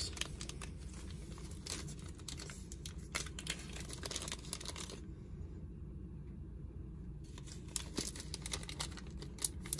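Faint crinkling and rustling of a small plastic zip bag of yellow game cubes being handled and pulled open, with scattered light clicks; quieter for a moment around the middle, then a cluster of sharper clicks near the end.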